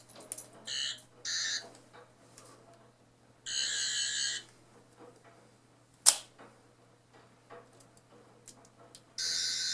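Toy Eleventh Doctor sonic screwdriver buzzing in short electronic warbling bursts: two quick ones right at the start, a longer one about three and a half seconds in, and another near the end. A single sharp click about six seconds in, the loudest sound, as the screwdriver's claw head springs open.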